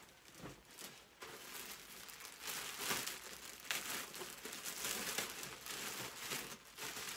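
Packaging crinkling and rustling in irregular bursts as a garment is dug out of a mail-order clothing package.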